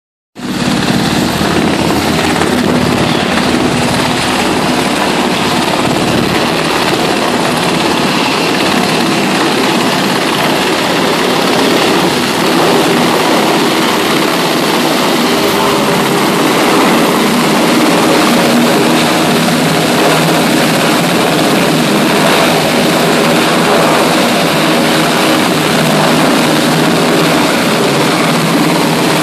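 Navy Seahawk (H-60) helicopter hovering low over a ship's flight deck, its rotor and turbines making a loud, steady rushing drone with a hum underneath, for a vertical replenishment lift. It grows a little louder about twelve seconds in as it closes on the deck.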